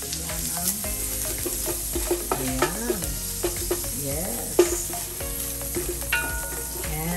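Chopped garlic frying in oil and margarine in a stainless steel pan, sizzling steadily, while a wooden spoon stirs and scrapes it, knocking against the pan. One sharp knock lands a little past halfway.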